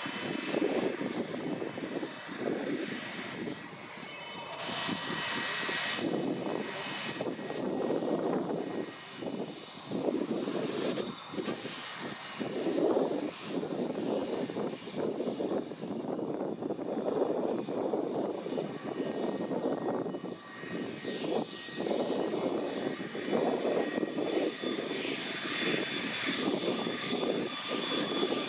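Gulfstream business jet's two rear-mounted turbofan engines running at low taxi power as it rolls slowly along the runway: a steady high whine over a rushing rumble that swells and fades.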